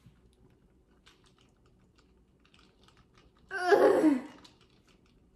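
A few faint light clicks, then about three and a half seconds in, a woman's short laugh.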